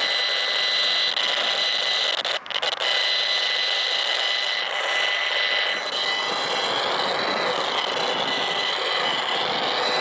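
HF35C high-frequency analyzer's audio output giving a loud, steady electronic buzz with fixed high tones, as the meter reads pegged at the foot of a cell phone tower. The buzz drops out briefly about two and a half seconds in, and a wavering tone joins it about six seconds in.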